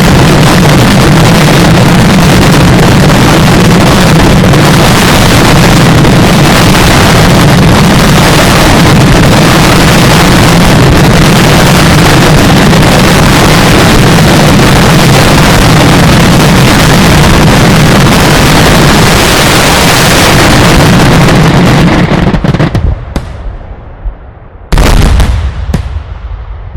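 Daylight fireworks finale: a barrage of loud aerial bombs so dense that the blasts merge into one continuous din, driving the recording close to full scale. It stops abruptly about 22 seconds in, and one last heavy blast follows a couple of seconds later.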